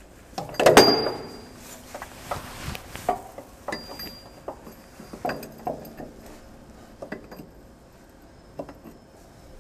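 Metal clanks and clinks from the splined slip joint of a wheel loader's driveshaft as the two halves are pulled apart, turned and slid back together to bring their balance marks into line. The loudest clank comes about a second in, followed by scattered lighter knocks.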